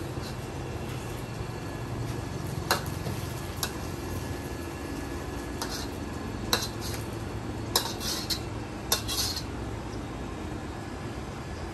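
Metal spatula clanking and scraping against a wok while noodles are stir-fried: about eight sharp, irregular clanks, several in quick succession about eight seconds in, over a steady low rumble.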